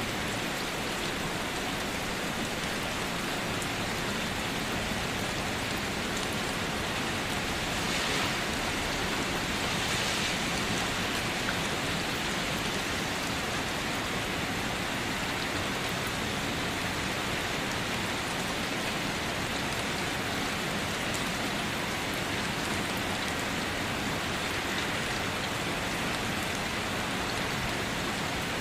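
Steady light rain falling and pattering on surfaces, with scattered individual drops, swelling slightly twice about a third of the way in.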